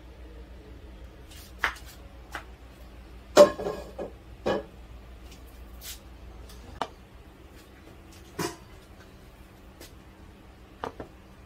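Cookware and utensils being handled: scattered knocks and clicks of a pan, spatula and bowl, the loudest a sharp knock about three and a half seconds in with a short ring after it. A low steady hum runs underneath and drops away about seven seconds in.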